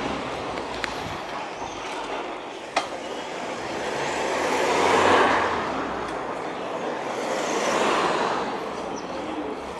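Cars driving past on the street, swelling loudest about five seconds in and again near eight seconds, over the steady road and wind noise of a bicycle ride. A single sharp click a little under three seconds in.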